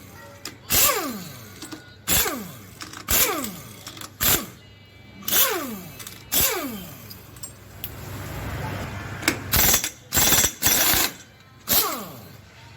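Background music: a beat of sharp percussive hits, about one a second, each followed by a quickly falling pitched sweep, with a cluster of louder hits about three-quarters of the way in.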